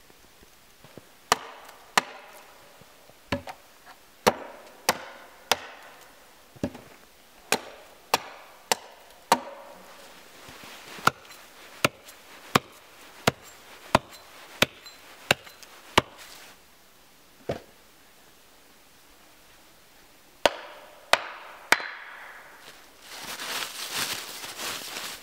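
Hatchet chopping wood at ground level: a long run of sharp strokes about every two-thirds of a second, stopping about 16 seconds in, then one more stroke and a quick three near the end. In the last few seconds, boots crunching in snow and dry leaves.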